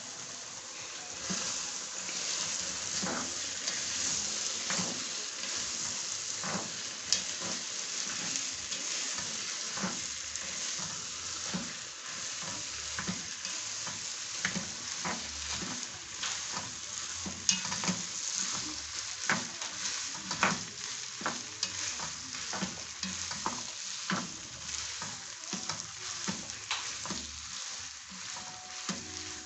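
Beans sizzling in a pot of coconut-cream, tomato and carrot sauce as they are stirred with a spoon, which knocks against the pot many times at uneven intervals.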